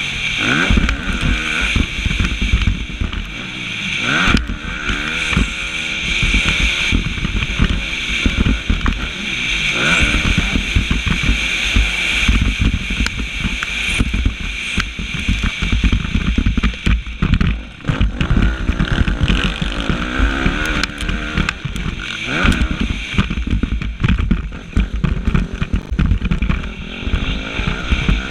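Suzuki motocross bike's engine revving hard and dropping off again and again through the race, the pitch rising and falling every few seconds. Heard from a camera riding on the bike, with wind rush and knocks from the bumps over it.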